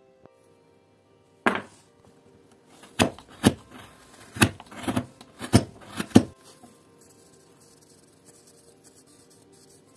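Chisel cutting into a small wooden block: one sharp crack about a second and a half in, then a quick run of about seven sharp knocks over three seconds as the blade bites the wood. Faint scratching of a pencil on wood follows.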